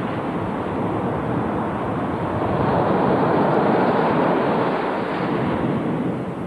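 Steady rush of ocean surf breaking and washing, swelling a little near the middle.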